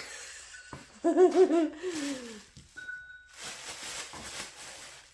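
A cat's drawn-out meow about a second in, lasting over a second, wavering in pitch and sliding down at the end. It is followed by a soft rustling hiss.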